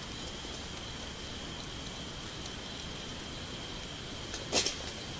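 Insects in the rainforest calling in a steady, high-pitched drone of two continuous tones. A single sharp snap about four and a half seconds in is the loudest sound.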